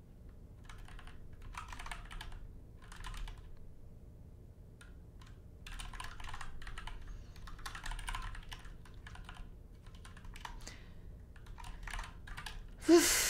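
Typing on a computer keyboard in several bursts of rapid key clicks, with short pauses between them. A brief, louder noise comes right at the end.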